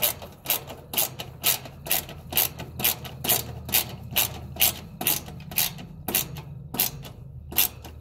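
Socket ratchet clicking in a steady rhythm, about two clicks a second, as it tightens the screw on a capacitor's mounting bracket; the clicking stops shortly before the end.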